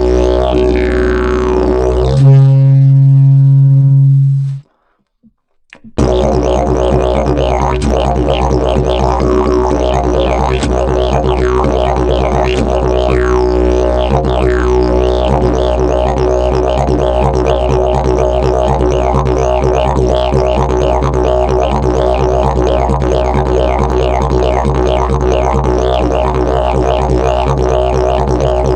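Fiberglass and prickly-pear-fibre didgeridoo playing a continuous drone with shifting, rhythmic overtones. About two seconds in it gives a louder held note for about two seconds, then breaks off into a second or so of silence before the drone starts again and carries on steadily.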